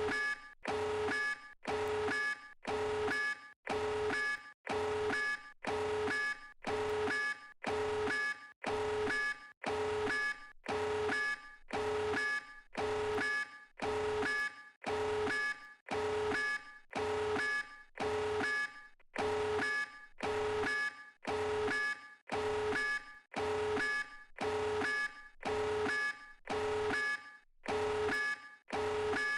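A looped electronic beep sound effect repeating about once a second, each blast a few steady tones sounding together, cut off by a short gap before the next.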